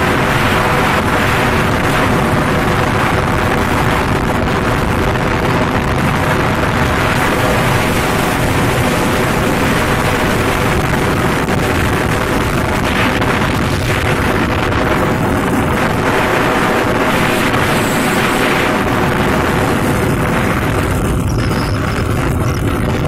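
Steady wind noise buffeting a phone microphone on a moving motorcycle, with the bike's engine running underneath as a steady hum.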